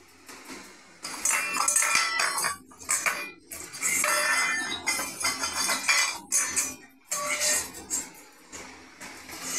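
Stainless steel dog bowl clattering and scraping on a tiled floor as a Labrador puppy paws and noses it. It comes in three bouts of metallic rattling with a ringing tone, with short quieter gaps between.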